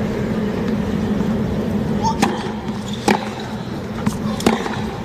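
Tennis ball struck by rackets in a hard-court rally: sharp hits beginning about two seconds in, a serve and then returns roughly a second apart. Under them is the steady hum of a large stadium crowd.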